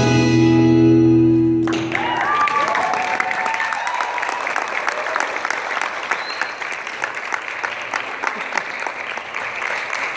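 Salsa music cuts off abruptly about two seconds in, followed by steady audience applause with a few whoops and cheers.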